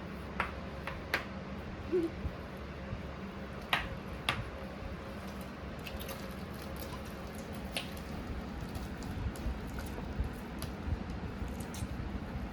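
Homemade slime being squeezed and kneaded by hand, giving scattered short wet squelches and sticky pops over a steady low room hum.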